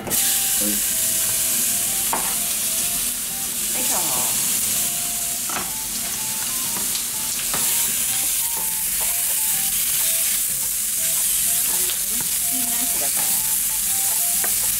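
Chopped onion frying in oil in a pan: a steady sizzle, with a spatula scraping and stirring through it a few times.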